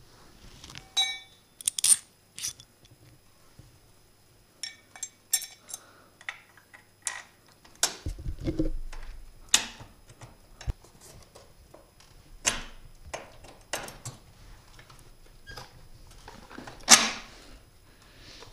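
Irregular metallic clinks, taps and clanks of a crash cage brace and a long bolt being handled and fitted into a motorcycle's frame mount, some with a brief ring; the loudest clank comes near the end.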